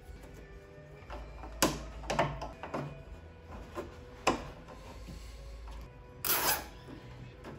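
Hands handling wiring and trim inside a car's trunk lid: several sharp clicks and scrapes, with a longer rustling scrape about six seconds in.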